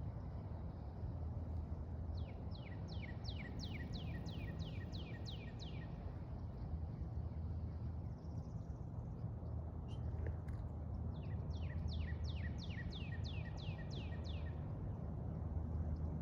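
A songbird singing twice, each phrase a quick run of a dozen or so clear whistled notes that each slide downward, over a steady low rumble.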